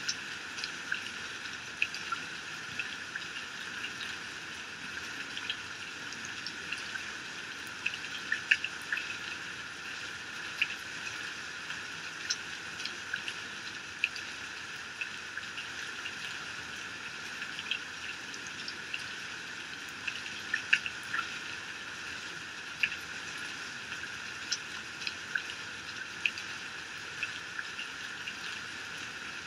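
Heavy rain falling steadily and pouring off a roof edge, with many sharp drops and splashes ticking through the hiss. No thunder is heard.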